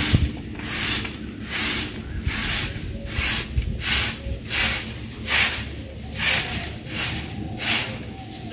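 A broom sweeping the ground in steady, even strokes, about two swishes a second.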